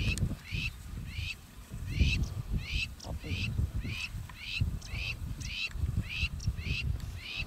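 A bird calling over and over, short high notes repeated about twice a second, over a low fluctuating rumble.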